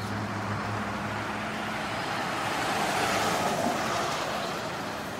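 A vehicle passing: a steady rushing noise over a low hum that swells to its loudest about three seconds in and then eases off a little.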